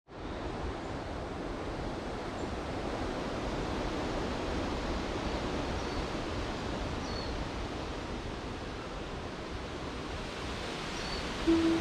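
Steady rushing wind noise, with a few faint high bird chirps. Music starts near the end.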